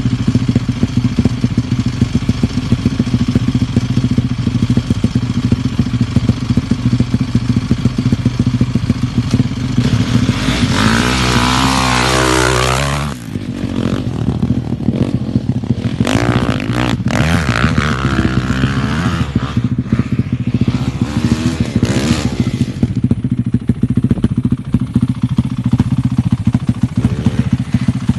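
Honda CRF450 dirt bike's single-cylinder four-stroke engine idling, then revving hard with a rising pitch about eleven seconds in and dropping off sharply as the bike pulls away. It then revs up and down as it rides off, with a steady idle still running underneath.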